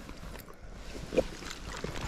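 River water running, with a loud splash about a second in and a few smaller splashes after it, from a landing net holding a trout at the water's surface.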